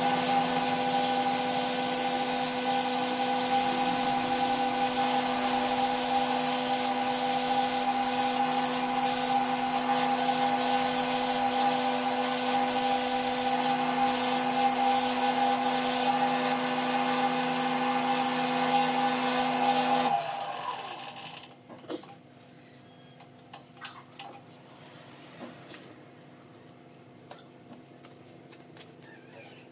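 A wood lathe's motor runs with a steady whine while sandpaper rubs against the spinning wooden vase, a rough hiss over the motor tone. About twenty seconds in the lathe is switched off and winds down, leaving a few faint knocks.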